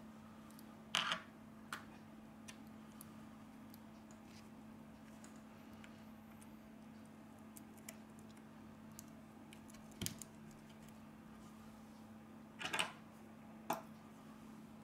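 Faint, sharp clicks and taps from fingers working on a smartphone's internal parts and flex connectors: a loud pair about a second in, one about ten seconds in and a cluster near the end. Under them runs a steady low hum.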